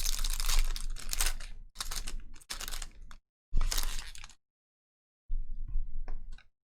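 Crinkling and scraping of trading-card pack wrappers and cards being torn open and handled, in several bursts with short gaps.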